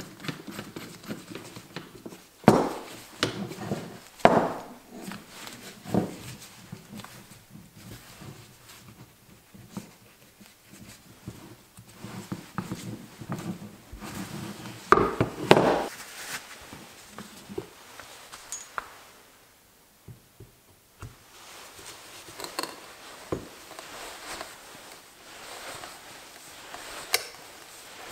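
Old hand brace being handled while its chuck is turned and a 1-inch auger bit fitted: irregular metal clicks and knocks, with a few louder knocks about two and a half, four and fifteen seconds in.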